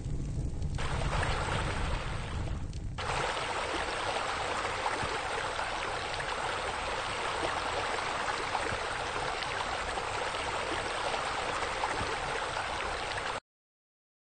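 Pool water features splashing: a steady rush of falling, splashing water that cuts off suddenly about a second before the end.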